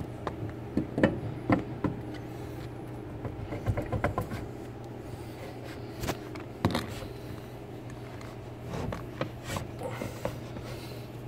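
Scattered light metallic clicks and knocks as the Sieg mini lathe's carriage is handled and adjusted on its bed, over a steady low hum.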